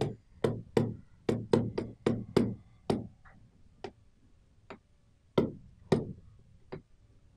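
Stylus tip tapping against the glass of a touchscreen display as words are handwritten on it: a quick, irregular run of sharp ticks. They come several a second for the first three seconds, then more sparsely with short gaps.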